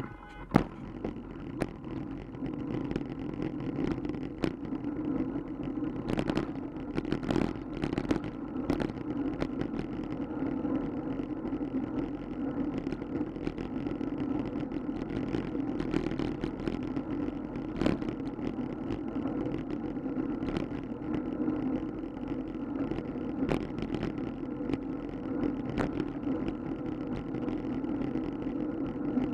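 Riding noise from a camera mounted on a moving bicycle: a steady rumble of wind and tyres on pavement, with scattered sharp knocks and rattles as the bike rolls over bumps and cracks, several close together in the first third.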